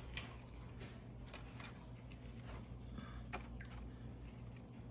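Quiet kitchen room tone with a low steady hum and a few faint soft taps as fried breaded shrimp are set down into sauce in a disposable aluminium pan.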